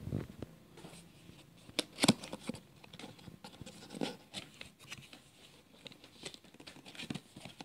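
Cardboard box being opened by hand: the lid flap and tuck tab scraping and rustling, with scattered sharp taps, the loudest about two seconds in.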